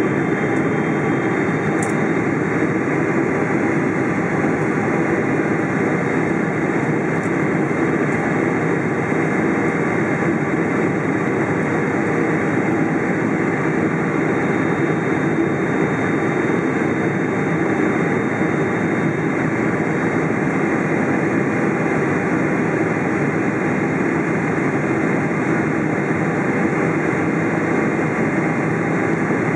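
Steady jet engine and airflow noise of a Boeing 777-300 on its landing approach, heard inside the passenger cabin. The noise holds an even level and pitch throughout.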